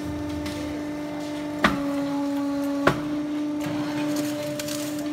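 Semi-automatic interlocking brick press running with a steady motor hum, with two sharp metal clanks from the machine about a second apart; the hum dips slightly in pitch between the two clanks.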